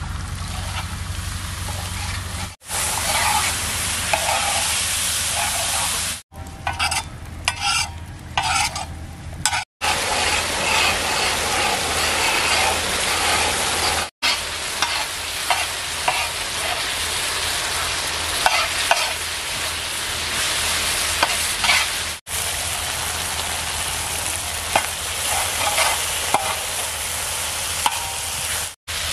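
Beef tikka masala sizzling and frying on a large iron tawa while a spatula stirs and scrapes through it, with scattered clicks of the spatula on the pan. Near the start, water poured onto the hot pan joins the sizzle. The sound breaks off briefly several times.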